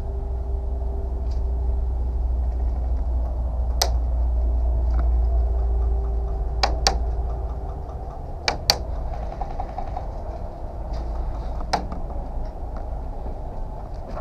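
Scattered sharp cracks of airsoft guns firing single shots, some in quick pairs, over a steady low rumble of wind and movement on the camera.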